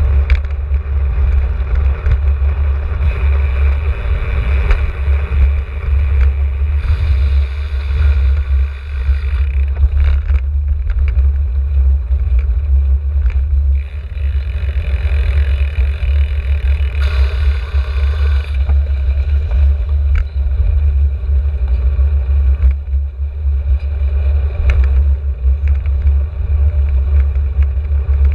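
Wind buffeting the microphone of a camera on a moving bicycle, a heavy steady rumble, with road and tyre hiss under it on a wet road. The hiss swells twice, about a quarter of the way in and again just past the middle.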